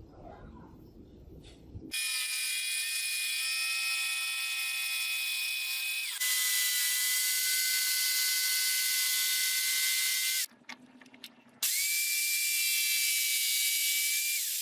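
Electric jigsaw cutting a laminated wood board: a steady high motor whine over the hiss of the blade. It starts about two seconds in, stops briefly near ten seconds, then runs again.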